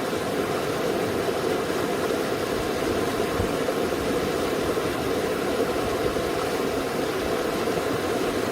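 Mountain stream rushing steadily, an even, unbroken rush of flowing water.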